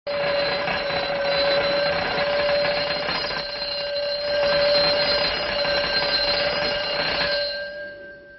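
An alarm bell ringing continuously, then fading away near the end.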